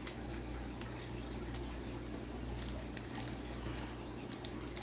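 Quiet room tone: a steady low hum, with faint scattered clicks and rustles of trading cards being handled and flipped.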